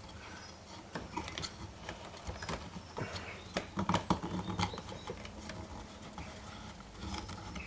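Light, scattered clicks and taps of hand handling as a drive belt is worked onto the pulleys of a homemade drum carder, with a cluster of sharper knocks about three to four seconds in.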